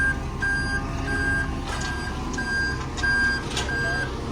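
Concrete mixer truck reversing: its back-up alarm beeps steadily, about one and a half beeps a second, over the low rumble of the truck's diesel engine.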